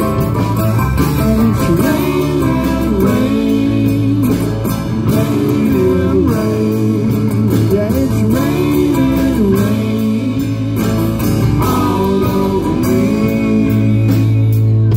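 A live band plays an instrumental passage of a song: acoustic guitars and a bass guitar under a melody line that bends in pitch.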